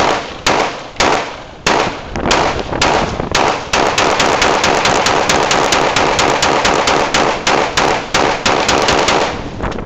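M16 rifle firing: several single shots about half a second apart, then a long fast string of shots lasting about six seconds, stopping shortly before the end.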